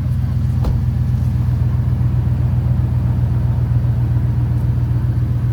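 Car engine idling steadily, with a single faint click less than a second in.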